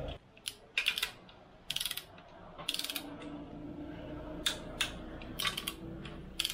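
Hand ratchet wrench clicking in several short bursts of quick strokes, as bolts are run down during the reassembly of an engine's lower end.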